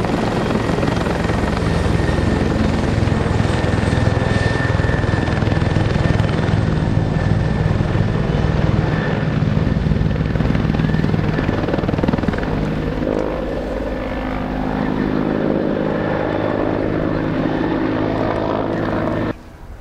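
Firefighting helicopter flying low overhead, its rotor beating steadily. The sound changes about two-thirds of the way through as the helicopter moves off, then cuts off abruptly just before the end.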